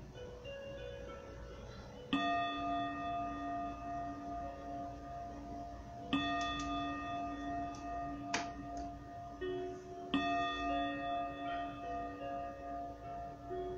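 A bell struck three times, about four seconds apart, each stroke ringing on into the next, over soft, slow meditation music. A single sharp click sounds about two thirds of the way through.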